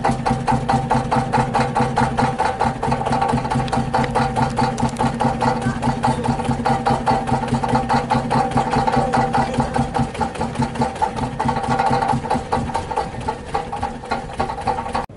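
Starter motor cranking the Fiat Marea Weekend's 16-valve engine at a steady pace of about five compression pulses a second. The engine does not catch, the sign of a car that will not start. It cuts off suddenly just before the end.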